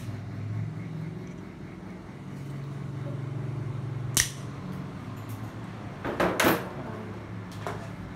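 Hand tools being handled: a single sharp click about four seconds in, then a quick cluster of louder clicks and knocks a couple of seconds later, over a steady low hum.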